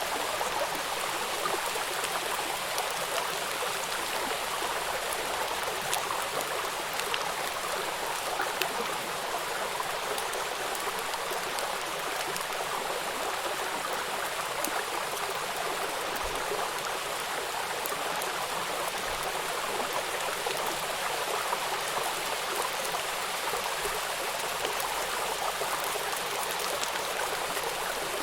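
Rain falling steadily, a dense even hiss with scattered individual drops.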